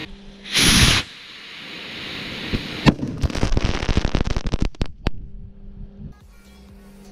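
A powerful firecracker blast about half a second in, blowing a watermelon apart, followed by a hiss and about two seconds of rapid crackling from burning firecracker pieces, ending in one sharp crack about five seconds in.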